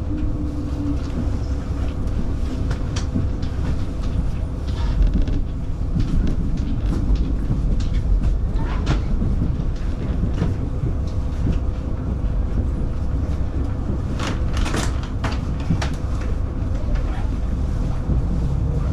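Diesel railcar running along the track: a steady low rumble of engine and wheels with a constant hum and occasional sharp clicks from the rails.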